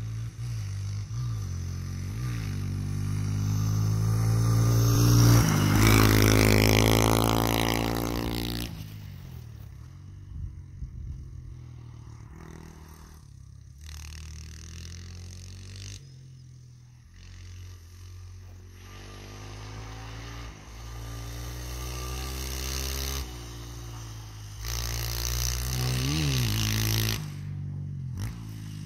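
Honda XR100 dirt bike's single-cylinder four-stroke engine revving through the gears as it laps an ice track. It is loudest as it passes close about six seconds in, its pitch dropping as it goes by. It fades into the distance, then comes back louder with quick revs near the end.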